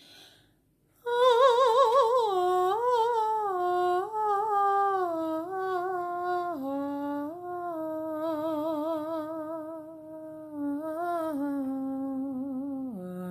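A single voice humming wordless healing tones. It starts about a second in with a wavering high note, then slides down in steps through several held notes, and drops to a lower note near the end.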